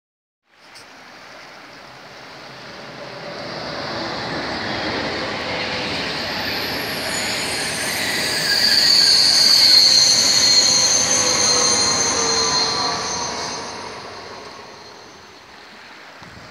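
An electric passenger train crossing a brick arch railway bridge: it builds up as it approaches, is loudest about halfway through with high-pitched ringing tones over the rumble, then fades away.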